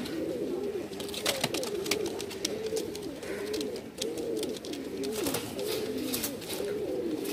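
Domestic pigeons cooing continuously in wavering, overlapping calls, with a few sharp clicks scattered through.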